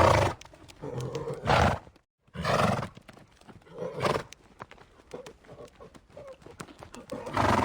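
Horses neighing, several loud calls spread through, with hooves clopping between them. The sound drops out completely for a moment about two seconds in.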